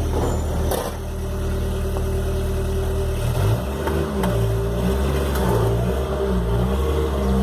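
Car engine idling steadily, then from about three seconds in its pitch rises and falls repeatedly as it is revved in short blips.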